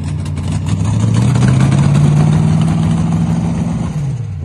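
Mega truck's engine revving while the truck sits bogged in a mud pit: it climbs in pitch about a second in, holds high and loud, then falls away near the end as it winds down.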